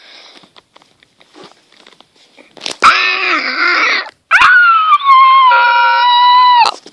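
A dog giving two loud, high-pitched drawn-out cries: a short one about three seconds in, then a longer one that slides down a little in pitch and holds steady before cutting off. Faint handling clicks come before them.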